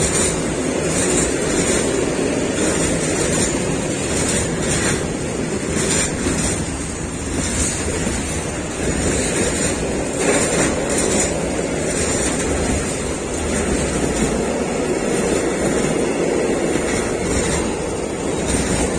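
Freight train of rail tank wagons rolling past close by: a steady rumble of wheels on the rails, with a few faint clicks now and then.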